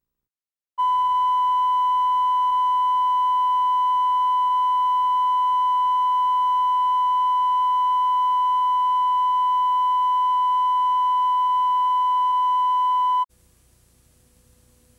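Steady broadcast reference test tone, the 1 kHz sine tone that goes with colour bars. It starts about a second in and cuts off suddenly near the end.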